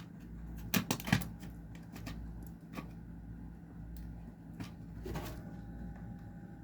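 Sharp plastic clicks and knocks from a smoke alarm being handled and fitted to its mount, a quick cluster of loud clicks about a second in and a few single ones later, over a steady low hum.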